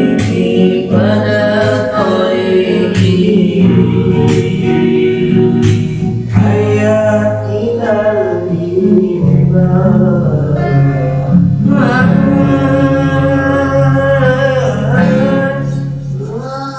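Sholawat, an Islamic devotional song, sung with melismatic vocal lines over sustained low accompaniment and sharp darbuka drum strokes. The music fades out near the end.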